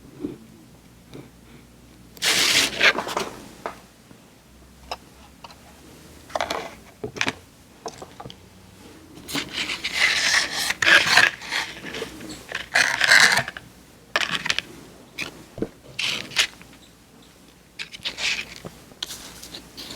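Close-miked paper being scraped, torn and crinkled in irregular bursts, with scattered small clicks and taps between them.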